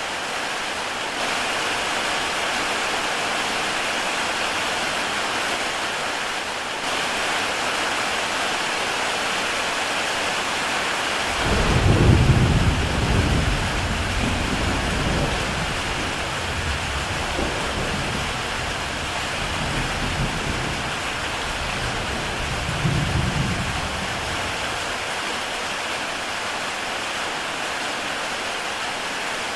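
Heavy rain falling steadily on a tile roof, an even hiss. About a third of the way in a low rumble of thunder rolls in, loudest at first, swelling again a few times, and dies away after about twelve seconds.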